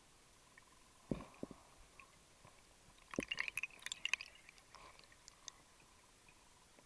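Underwater sounds from a diver's gear, picked up by the camera at depth: two dull knocks about a second in, then a burst of sharp crackling clicks lasting just over a second, with a few scattered ticks after.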